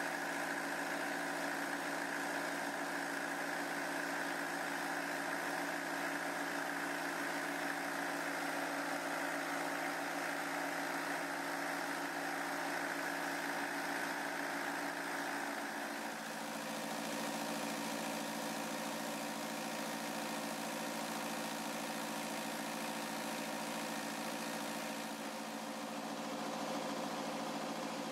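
Kubota V2203 four-cylinder diesel engine running steadily, its tone shifting slightly about halfway through.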